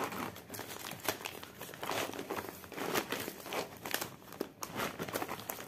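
Cross-stitch kit packaging pouch being handled and pushed as the folded fabric and threads are squeezed back into it: a run of irregular rustles and crackles.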